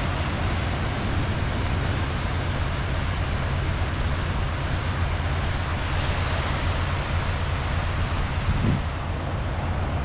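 Small waves washing up and draining back over a sandy beach: a steady hiss of shallow surf over a continuous low rumble, with a brief low thump near the end.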